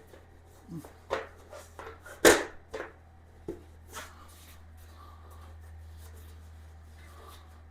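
Shelf boards being slid into a metal shelving frame and dropped into place: a handful of knocks and taps in the first few seconds, one loud knock about two seconds in, over a steady low hum.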